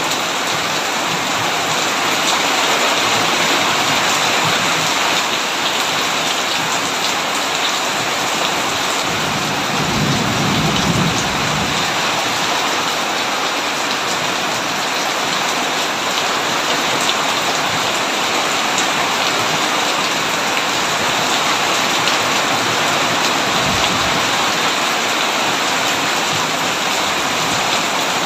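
Heavy rain drumming steadily on a tin roof, with a low roll of thunder about ten seconds in and a brief fainter rumble later.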